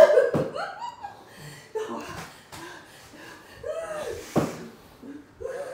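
Short broken bursts of laughter and gasping breaths from a person, with a sharp breathy noise a little after four seconds.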